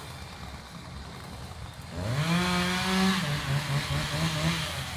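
A two-stroke chainsaw revving up about two seconds in, held at high speed, then its pitch wavering up and down as the throttle varies.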